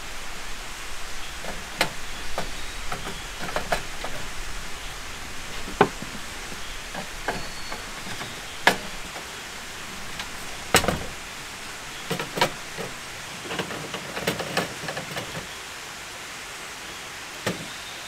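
Hard wooden pieces clicking and knocking on a wooden tabletop as a wooden frame is assembled around a camping stove, at irregular intervals with a sharper knock just past the middle, over a steady background hiss.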